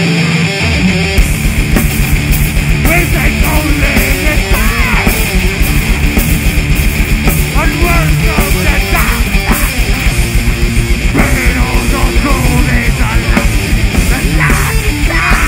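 Heavy metal band playing live: distorted electric guitar, bass guitar and fast drumming, with a vocalist singing into a microphone. The full band with its rapid beat comes in about a second in.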